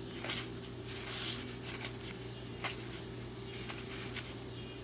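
Cardboard baseball cards being handled by hand: a handful of soft slides and flicks as cards are moved through the stack, over a steady low hum.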